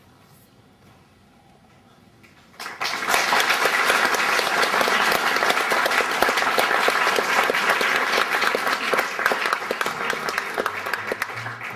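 Theatre audience applauding. The applause starts suddenly about two and a half seconds in after a quiet pause and tapers slightly near the end.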